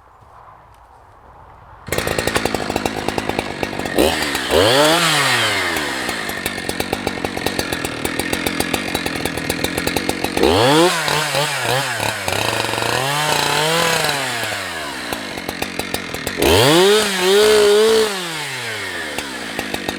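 Husqvarna 365 two-stroke chainsaw starting up about two seconds in, then idling and being revved up and back down three times, the last rev held high for about a second.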